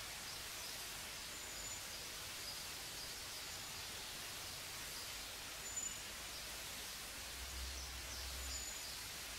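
Steady hiss of an old tape recording with faint room noise, and short faint high peeps every second or two.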